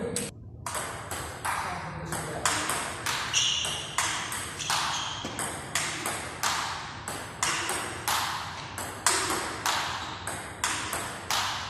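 Table tennis rally: the celluloid ball clicks sharply as it strikes the rackets and bounces on the table, in a steady rhythm of about two hits a second.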